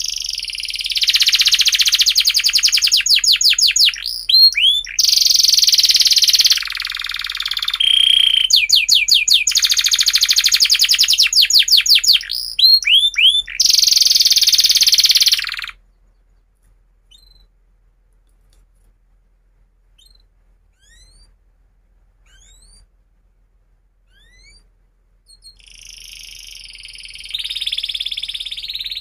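Domestic canary singing a long, loud song of fast trills and rolls that breaks off about halfway; after about ten seconds of only faint scattered chirps, the song starts up again near the end.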